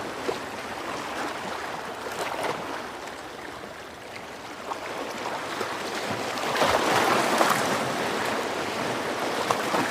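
Sea waves washing in, a steady hiss of water that swells louder as a wave breaks about two-thirds of the way through.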